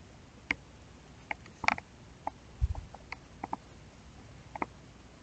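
Scattered light clicks and taps at irregular intervals, with a single low thump about two and a half seconds in.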